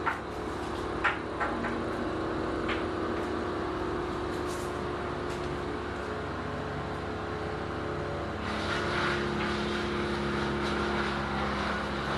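Wood chipper engine running steadily. About eight seconds in, its note shifts and a harsher noise joins in.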